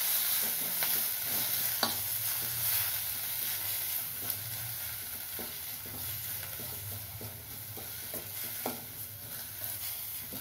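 Chopped onion, tomato, green chillies and curry leaves sizzling in oil in a stainless steel pan, stirred with a steel spoon, with a few clinks of the spoon against the pan. The sizzle grows slowly quieter.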